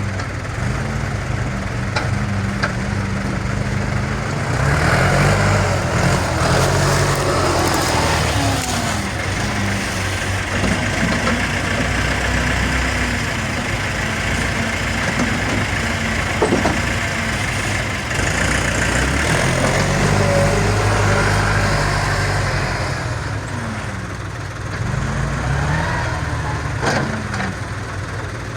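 Heavy diesel machine engine running under varying load, revving up twice for several seconds each time before settling back, with a few brief knocks.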